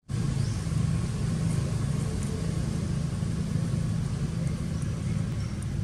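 A steady low rumble, even and unbroken, with a few faint short high chirps over it.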